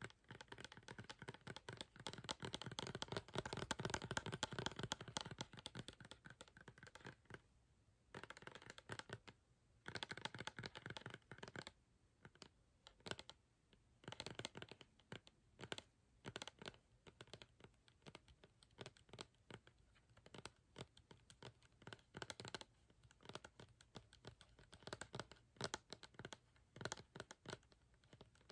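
Fingernails tapping rapidly on a plastic Garnier Fructis Style smoothing-milk bottle, in quiet runs of quick clicks broken by short pauses.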